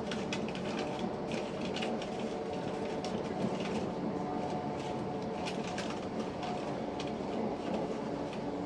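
Inside a ScotRail electric passenger train running between stations: a steady running noise with a low hum, and frequent light clicks and rattles.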